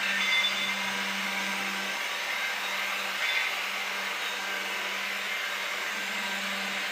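TT-scale model coal train running on its track: a steady motor hum with the rolling rattle of the wheels and Tillig Falls wagons. It is a little louder in the first half-second as the wagons pass close, then settles to an even level as the train runs to the far side.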